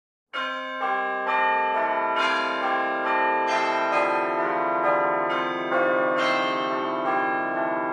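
Church bells ringing, beginning about a third of a second in. Each new bell is struck over the ringing of the ones before.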